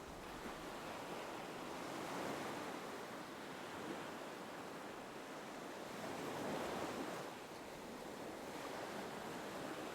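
Gentle ocean waves washing onto a shore, a soft steady rush that swells and eases slowly, about twice.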